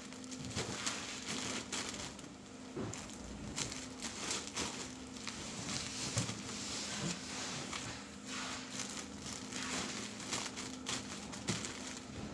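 Plastic-bagged towel packs crinkling and rustling as they are handled, lifted off a conveyor belt and dropped into a cardboard box, in an irregular run of short rustles. A steady low machine hum runs underneath.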